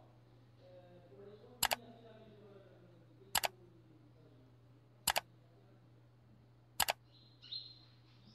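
Sharp double clicks repeating at an even pace, about one every 1.7 seconds, four in all, over a faint steady hum. A brief bird chirp comes near the end.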